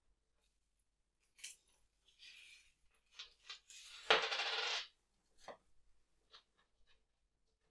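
Coins and folded paper banknotes handled on a hard tabletop: a few light clicks and a brief paper rustle, then coins clattering onto the table about four seconds in, followed by a few smaller ticks.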